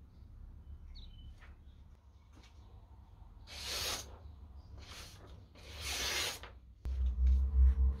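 A hand-forged knife slicing through a sheet of paper in two strokes, each a short papery hiss, as a test of the edge's sharpness. Near the end a louder low rumble starts suddenly.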